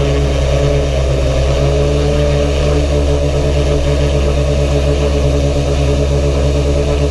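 Steady, unbroken drone of the CGT-50 VTOL UAV's motors and propellers in flight, heard from a camera mounted on the airframe.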